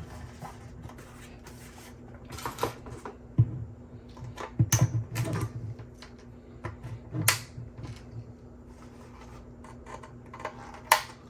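Bambu PLA support material being snapped and peeled off a 3D-printed helmet by hand: irregular sharp plastic cracks and clicks with a few duller knocks, over a faint steady hum.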